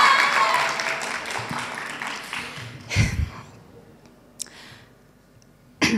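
Audience applause and cheering dying away over the first few seconds. A single soft thump comes about three seconds in, then the hall goes fairly quiet.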